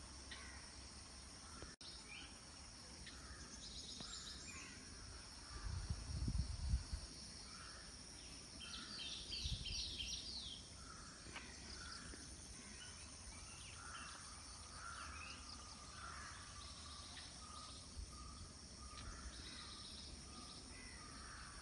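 Outdoor ambience of insects making a steady high buzz while birds chirp in short repeated notes now and then. A few brief low rumbles come about a quarter of the way in and again near the middle.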